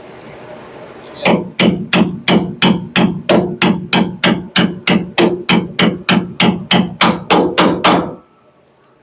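A hammer striking metal about twenty times in a steady rhythm, about three blows a second, each blow ringing briefly, then stopping. The hammering is aimed at knocking out a stuck leaf-spring shackle bolt.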